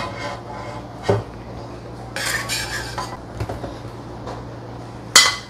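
Metal spatula scraping and clattering against a pan and a glass dish as fried rice noodles are scooped out, with a burst of scraping a couple of seconds in and a sharp clink near the end. A steady low hum runs underneath.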